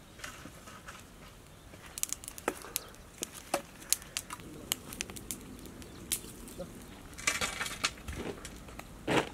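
Open wood fire crackling, with sharp pops scattered throughout and a louder rustling burst twice near the end.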